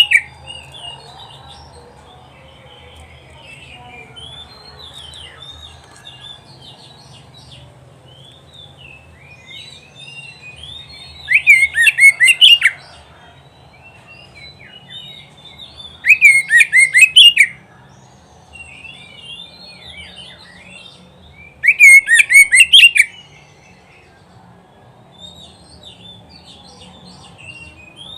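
Oriental magpie-robin singing: a run of quieter, varied whistled phrases, broken three times by loud bursts of rapidly repeated notes, each lasting about a second and a half.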